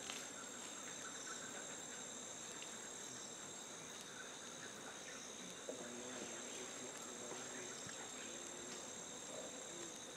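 Steady high-pitched drone of forest insects, two continuous tones, one high and one higher, over faint background hiss.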